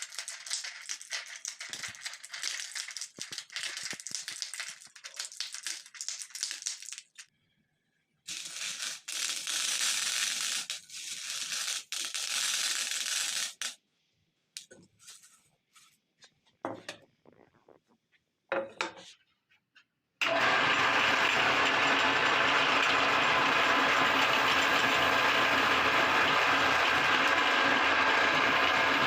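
Small hard candy-coated chocolates clattering in dense bursts for about the first 14 s, then a few scattered clicks. About 20 s in, a meat grinder's motor starts and runs steadily, grinding the candies.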